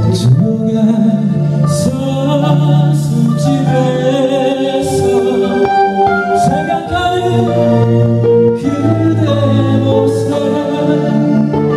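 A band playing live: electric guitar, bass guitar and drums, with cymbal crashes every second or two.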